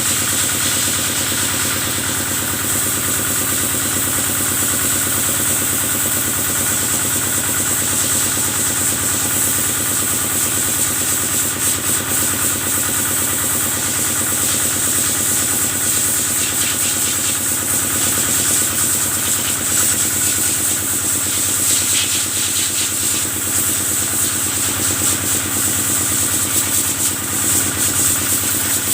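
Kubota engine powering a cattle-washing water machine, running steadily at an even speed.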